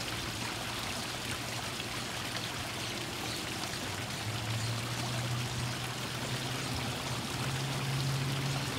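Water running and trickling steadily into a backyard garden pond, with a steady low hum underneath that grows louder about halfway through and again near the end.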